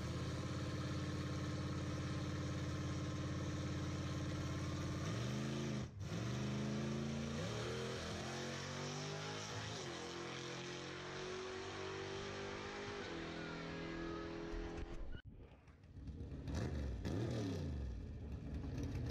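Drag-racing pickup truck engine idling steadily at the starting line. About five seconds in it revs and launches, its pitch climbing in a series of rising sweeps through the gear changes before settling into a steady run. Near the end an engine is revved up and down in quick blips.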